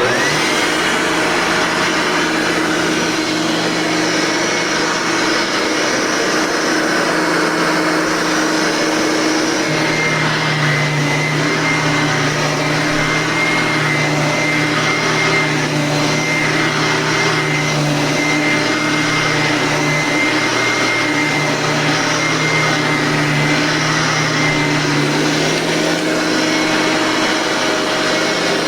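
A 1990s Eureka vacuum cleaner switched on and running steadily: a loud motor hum with a thin high whine above it.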